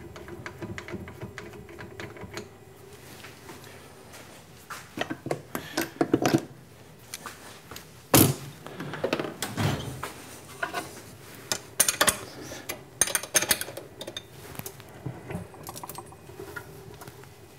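Metal hand tools and wrenches clinking and clattering against a milling machine's cast-iron head and a plywood platform as the head is taken apart, in irregular knocks with one sharp knock about eight seconds in. A faint steady hum sits under the first couple of seconds.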